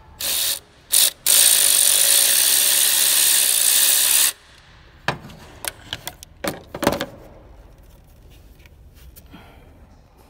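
A power ratchet spinning off the nut on the alternator's positive battery-cable terminal: two short blips, then a steady run of about three seconds, followed by a few sharp metal clicks and clinks.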